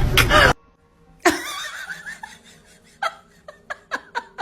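A person laughing in short, quick bursts, about three or four a second, starting after a brief silence.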